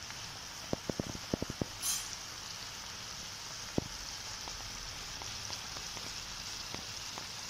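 Small masala-coated fish frying in hot mustard oil in a kadhai: a steady sizzle, with a quick run of short clicks about a second in and one more near the middle.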